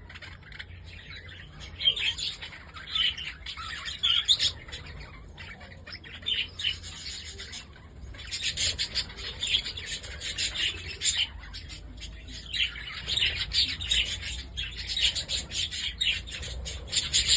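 A flock of budgerigars (Holland budgies) chirping and chattering in a dense run of short, high chirps, busiest through the second half, over a faint steady low hum.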